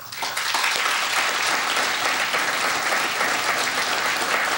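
Audience applauding, the clapping starting abruptly and holding steady throughout.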